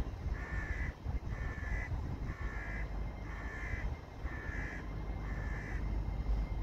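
A crow cawing seven times, about once a second, in an even series that stops near the end. Under it is the low rumble of an LNER Azuma train pulling slowly into the platform, growing louder.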